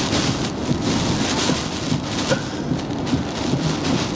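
Category 4 hurricane's wind-driven rain pelting a vehicle, with a heavy rushing noise that surges in waves every second or so over a low rumble.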